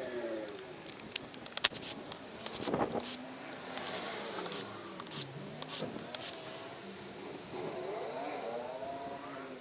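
Hand tools clinking and scraping on the metal of a transfer case casing, with a quick run of sharp clinks about two to three seconds in. A faint pitched sound wavers up and down in the background.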